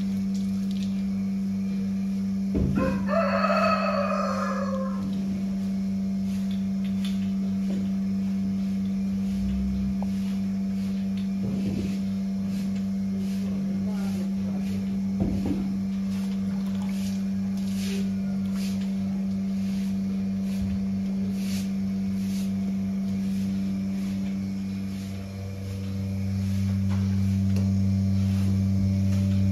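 A rooster crows once, about three seconds in, over a steady low hum that runs throughout.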